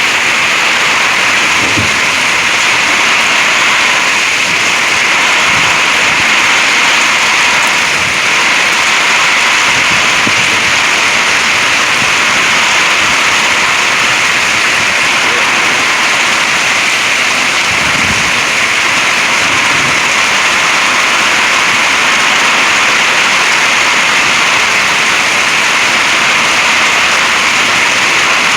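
Heavy thunderstorm downpour: rain pouring hard in a loud, steady rush.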